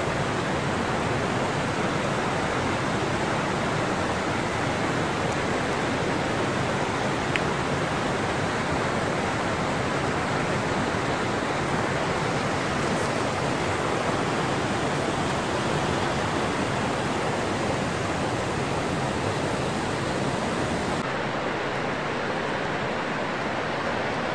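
Steady rushing noise of water, even and unbroken, turning slightly duller near the end.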